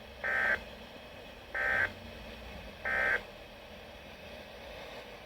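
A weather radio broadcast sends the SAME end-of-message signal: three short, equal bursts of warbling digital data tones, about a third of a second each and spaced a little over a second apart, over faint radio hiss. They mark the close of the alert message.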